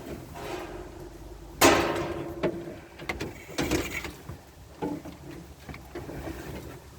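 Irregular metal clanks and knocks from sheet-metal body work, with one loud ringing clang about a second and a half in and a few lighter knocks after it.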